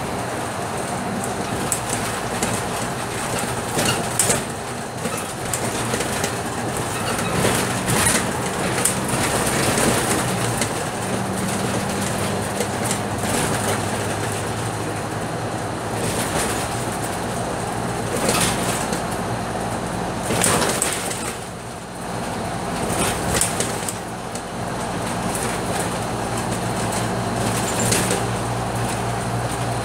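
Interior of a Scania K310UB city bus on the move: the rear-mounted five-cylinder diesel runs steadily under the road and tyre noise, its note shifting as the bus speeds up and eases off. Brief knocks and rattles from the body and fittings come every few seconds.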